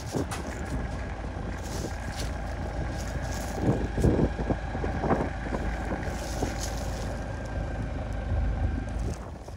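Rough-terrain forklift's engine running under load as it lifts the front end of a truck on a chain, with a few louder gusts or clunks partway through and wind buffeting the microphone.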